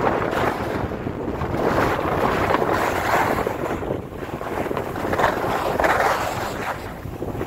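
Skiing down a packed, groomed run: edges hissing and scraping over the snow through each turn, the noise swelling and easing every second or so, with wind rushing on the microphone.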